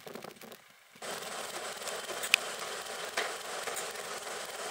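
Class 37 diesel locomotive 37901 standing with its engine idling: a steady, noisy hiss that starts abruptly about a second in, with one sharp click a little after the middle.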